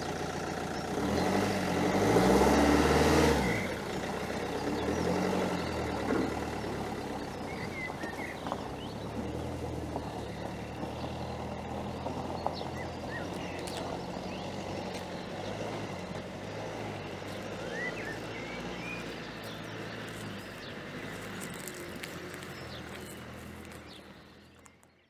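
Motorhome engine pulling away, revving hardest in its pitch rise and fall about two to three seconds in as it moves off. It then runs steadily and fades gradually as the van drives away.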